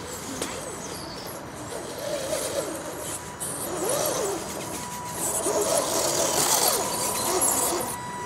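Scale RC rock crawler trucks driving over mud and boards, their electric motors and gearing whining up and down in pitch with the throttle; it gets louder about halfway through.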